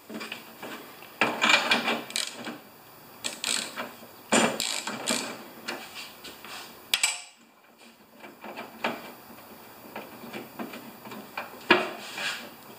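Ratchet wrench clicking in short spells as a 3/4-inch spark plug socket works the spark plug out of a two-stroke snow thrower engine, with a sharp metal click about seven seconds in and lighter tool clinks after.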